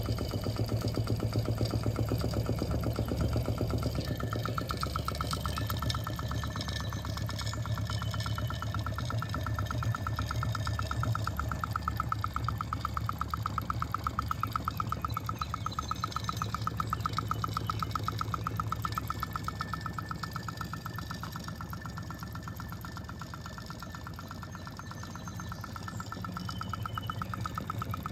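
A 1920s Kyko hot air (Stirling) engine utility motor, made by The Model Engineering Co., running steadily with a fast, even mechanical clatter from its piston and flywheel drive. It gets a little quieter a little past two-thirds through, then picks up again near the end.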